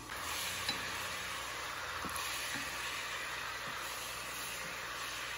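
Water boiling in a pan around longganisa sausages: a steady bubbling hiss that starts suddenly, with a brief click under a second in. The sausages are being boiled through in the water before they fry in their own fat.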